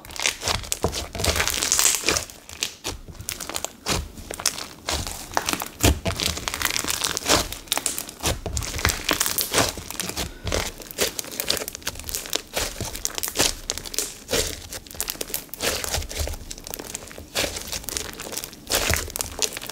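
Foam-bead slime (floam) in a clear glue base being kneaded, pressed and stretched by hand: a steady run of small, irregular crackles and sticky pops as the beads and trapped air shift.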